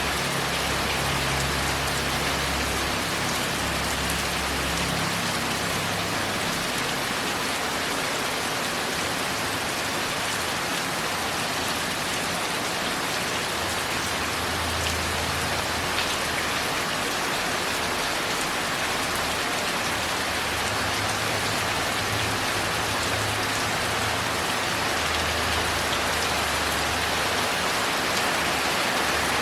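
Steady, heavy rain falling on a tile roof, an even hiss with fine pattering of drops, while a faint low rumble comes and goes underneath.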